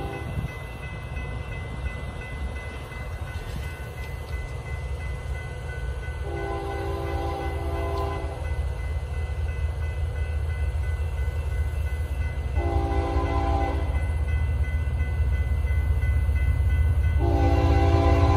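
Approaching diesel freight locomotive sounding its multi-note air horn in the grade-crossing pattern: a long blast ending just at the start, another long blast about six seconds in, a short one around thirteen seconds, and a long blast starting near the end. Underneath, a low locomotive rumble grows steadily louder as the train nears.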